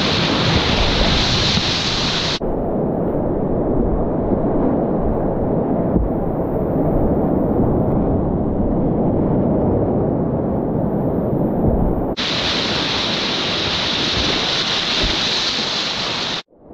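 Loud, steady rush of whitewater rapids close around a kayak. Between about two and twelve seconds in the sound turns muffled, losing its high hiss, and it drops out briefly just before the end.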